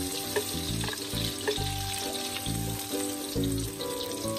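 Blended chili paste sizzling and spattering in hot oil in a wok as it is scraped in and stirred with a wooden spatula. Background music with a steady beat plays along.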